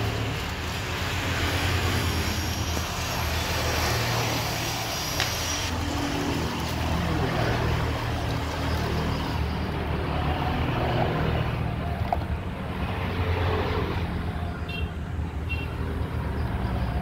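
Paper and plastic phone packaging rustling and being handled: a paper sleeve, a clear silicone case and a charger are taken from the box. Under it runs a steady low rumble.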